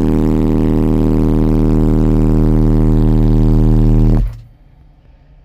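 Car audio subwoofer system playing a steady 39 Hz test tone at full power inside the sealed-up cabin, an SPL burp that cuts off suddenly about four seconds in. The burp measures 158.5 dB on the dash meter.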